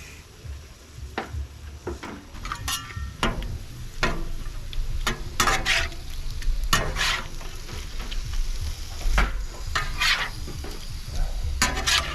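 Food sizzling on a Blackstone flat-top griddle, with metal spatulas scraping and clinking against the steel surface a dozen or so times.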